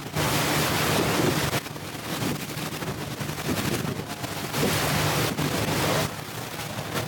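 Wind buffeting the microphone in gusts over the rush of water along the hull of a speedboat under way, with the boat's engine humming steadily underneath.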